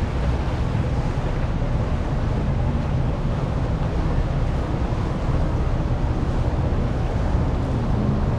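Boat engines running in the inlet, mixed with steady wind buffeting the microphone and the wash of waves.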